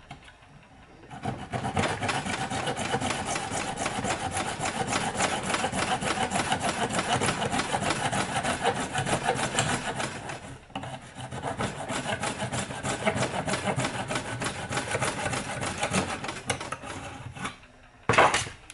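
Coping saw cutting through white plastic pipe by hand in quick back-and-forth strokes, with a short pause about halfway through. It ends with a sharp knock that is louder than the sawing.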